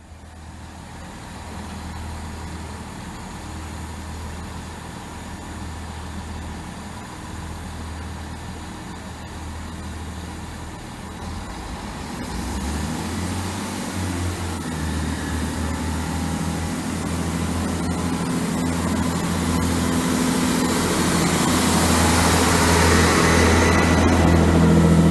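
A Class 165 Networker Turbo diesel multiple unit running into a station platform. A low diesel engine hum runs throughout, growing steadily louder from about halfway as the engines and running noise come closer, and is loudest near the end as the carriages pass close by.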